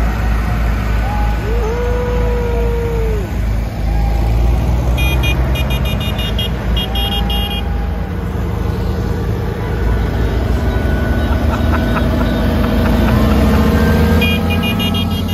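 Vintage farm tractor engines running at low speed as the tractors pass close by, a steady deep rumble that swells near the end as a tractor goes right past. A short pitched tone rises and falls about two seconds in.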